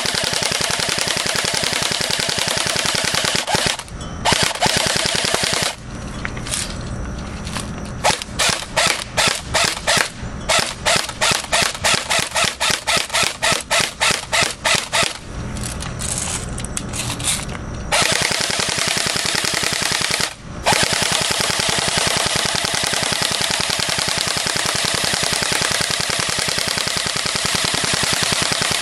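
Airsoft gun firing on full auto in long, rapid strings of shots. In the middle there is a stretch of separate shots, a few a second, and a few brief pauses.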